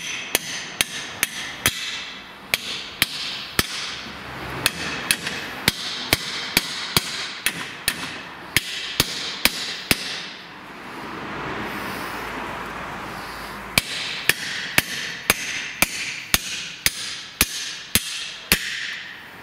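Hammer blows on the front lower suspension arm of a Land Rover Discovery 3, about two sharp strikes a second, knocking the arm into line so that its bolt will go in. The strikes stop for about three seconds midway and then resume.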